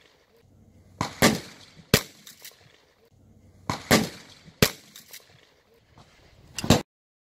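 Shotgun shots at thrown clay targets: about eight sharp, loud reports in quick clusters, several coming a quarter to half a second apart. The sound cuts off suddenly shortly before the end.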